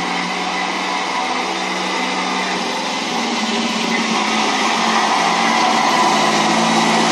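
Beier USM-HL sound module in an RC King Tiger model tank playing its customised tank engine and running sound through the model's small speaker: a steady mechanical drone with a low hum, growing a little louder over the last couple of seconds.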